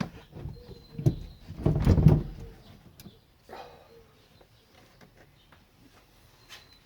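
Knocks and scraping of parts being handled and shifted inside the car. The loudest burst comes about two seconds in, with a smaller one a little later, and it is mostly quiet afterwards.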